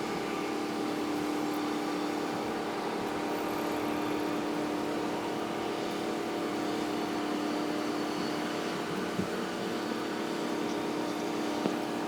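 Steady mechanical drone of engines: a constant hum over an even hiss, with no change in pace.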